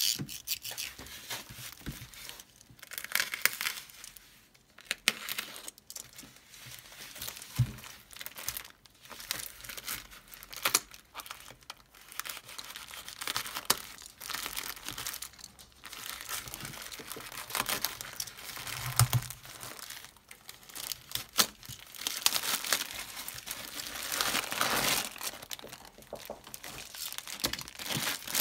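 Plastic packaging crinkling and tearing as a black plastic mailer is cut and pulled open by hand, then a film-wrapped pack of vacuum sealer bag rolls crinkling as it is handled. There are irregular bursts of crackling throughout, with a dull thump twice.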